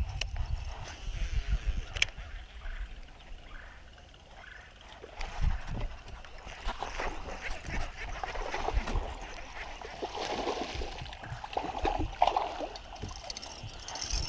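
Water splashing and gurgling at the surface as a bass hits a buzzbait and is played to the boat, over a steady low rumble.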